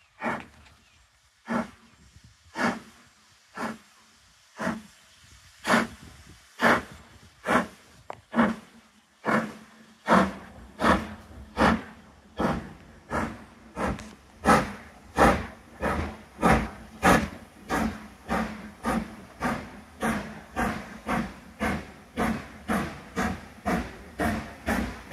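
LMS Stanier Black Five 4-6-0 steam locomotive 44871 pulling away from near standstill: sharp chimney exhaust beats about one a second at first, quickening steadily to about two and a half a second as she accelerates. A low rumble from the train joins from about halfway.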